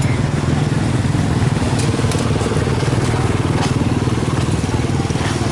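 Motorbike engine running steadily, with a few light clicks over it.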